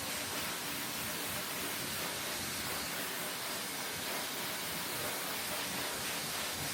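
Shelandy high-velocity pet dryer running, blowing air out through its hose as a steady, even rushing hiss.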